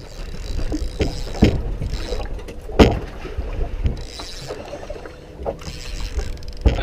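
Water lapping against a small fishing boat's hull, with wind on the microphone and a few sharp knocks, the loudest about three seconds in.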